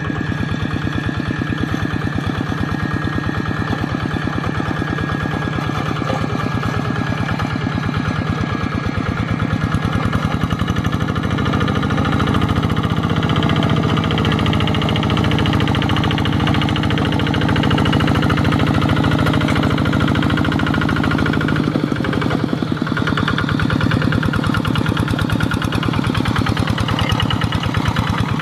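Single-cylinder diesel engine of a two-wheel hand tractor running steadily with a rapid, even firing beat as the tractor works through the mud of a flooded rice paddy.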